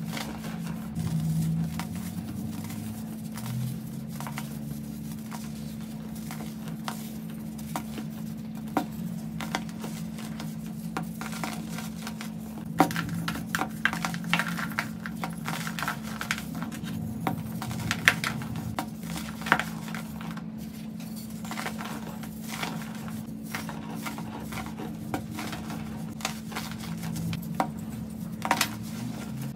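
Hands crushing and crumbling moulded blocks of dry baking soda: dry crunching and crackling with many small snaps, sharpest in the middle and again near the end. A steady low hum runs underneath.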